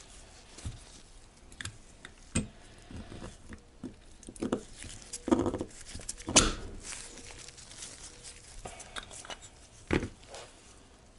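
A C-Clipper circlip installer pressing a wrist pin circlip into the pin bore of a new two-stroke piston: irregular light clicks and knocks of metal and plastic being handled, with the loudest knock about six seconds in.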